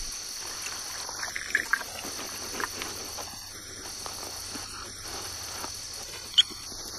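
Steady night chorus of crickets with faint scattered rustles and ticks in dry leaf litter. One brief sharp sound stands out about six seconds in.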